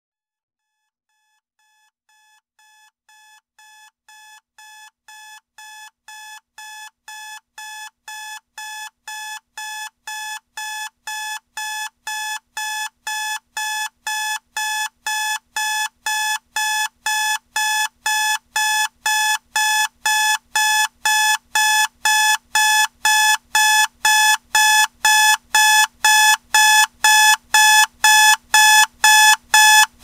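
Electronic alarm clock beeping, about two short beeps a second, starting about two seconds in and growing steadily louder.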